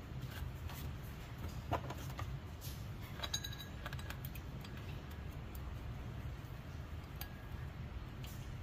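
Scattered light metallic clinks and taps of hand work on the water pump and its pulley on a 4.6-litre engine, one ringing briefly about three seconds in, over a steady low hum.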